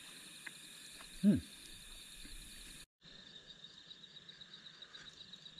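Night-time insect chorus, crickets trilling steadily at a high pitch. A short falling call sounds about a second in, and the chorus breaks off for a moment about halfway through.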